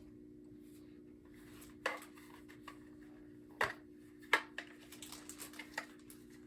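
A FireX AD smoke alarm being handled: a few sharp plastic clicks and knocks, the loudest about two, three and a half and four and a half seconds in, with lighter ticks between them, over a faint steady hum.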